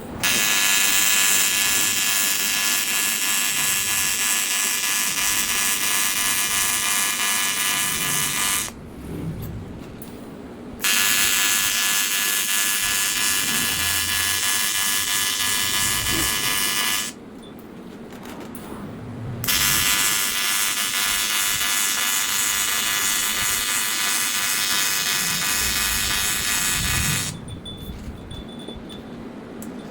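AC TIG welding arc on aluminium buzzing steadily, struck three times: runs of about eight, six and eight seconds with short pauses between.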